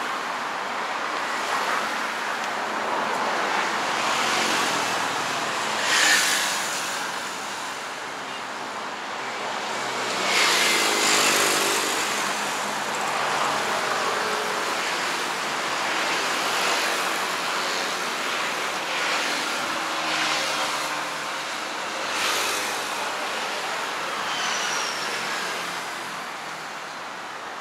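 Steady road traffic, with vehicles passing close by one after another; the loudest pass by about six, ten to twelve, and twenty-two seconds in.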